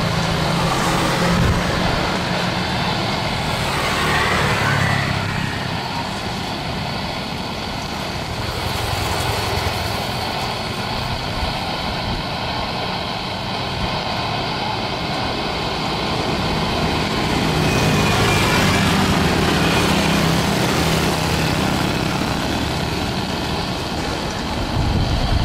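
Jet airliner engines: a Super Air Jet Airbus A320 on final approach and landing, a steady high whine over a deep rumble. The rumble is loudest in the first few seconds and swells again about three-quarters of the way through, as the jet reaches the runway.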